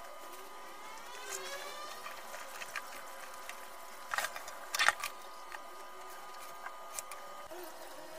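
Plastic kitchen bowls and baskets being handled and set down on a tiled counter, with a couple of sharp clattering knocks about four to five seconds in. A faint rising whine comes about a second in, over a steady faint hum.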